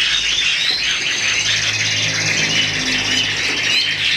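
Several caged Chinese hwamei (melodious laughingthrushes) singing at once: a dense, overlapping stream of rapid whistled phrases and trills. The birds are in full breeding form.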